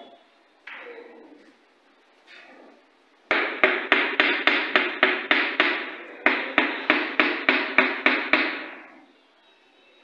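Hammer blows on a wall panel, quick and evenly spaced at about four a second: a run of about a dozen starting a few seconds in, a brief pause, then about nine more.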